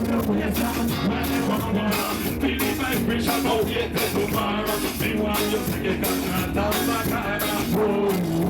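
Background music: a song with singing over a steady, even beat.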